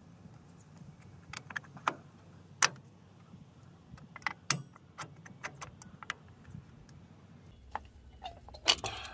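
Scattered sharp metallic clinks and taps of drum-brake shoes and their spring hardware being fitted by hand against the steel backing plate, the loudest a little under three seconds in. A quick cluster of clinks near the end as pliers hook the bottom return spring into place.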